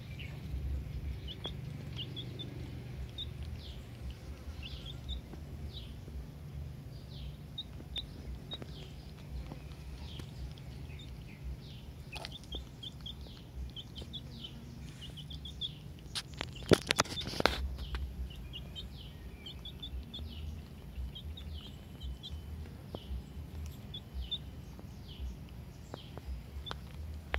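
Small birds chirping, short high calls repeated over and over, over a low steady rumble. A brief cluster of sharp clicks and knocks a little past the middle.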